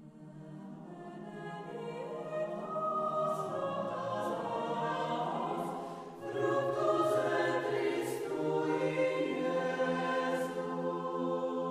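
Choral music: a choir singing slow, sustained phrases, fading in at the start, with a brief dip about six seconds in before the next phrase begins.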